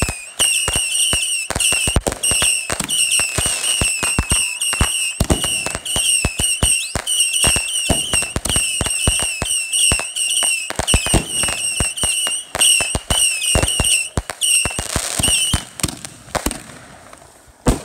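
Consumer fireworks going off in rapid succession: a dense run of sharp bangs and crackles, with short warbling whistles repeating about twice a second until near the end. After the whistles stop, the bangs thin out.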